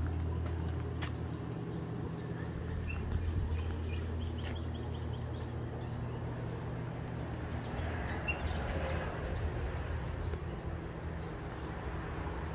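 Outdoor ambience: a steady low rumble with faint bird chirps now and then and a few soft knocks.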